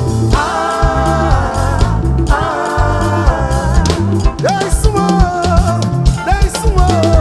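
Ghanaian highlife music: singing and held melodic lines over a pulsing bass line and steady drums.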